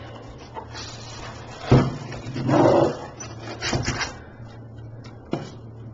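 Expanded polystyrene foam packing being handled and pulled apart, squeaking and rubbing, with a thump about a second and a half in and a few knocks after. A steady low hum runs underneath.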